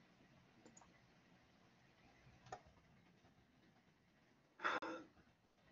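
Near silence: room tone, with one faint click about two and a half seconds in and a brief sound of a man's voice near the end.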